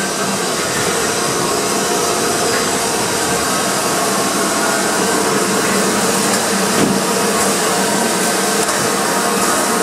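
Harz narrow-gauge Class 99 2-10-2T steam tank locomotive letting off steam in a loud, steady hiss, blowing from low down beside its wheels.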